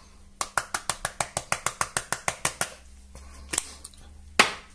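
A container of sweet paprika being sprinkled over the bowl: a quick, even run of clicks, about seven a second for two seconds, then one more click and a sharper knock near the end.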